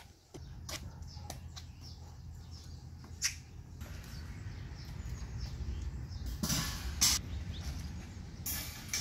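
Steel wire shelf panels of a Trinity shelving unit clinking and rattling as they are handled and set down, with a few sharp clicks early on and two longer rattling clatters near the end, over a steady low rumble.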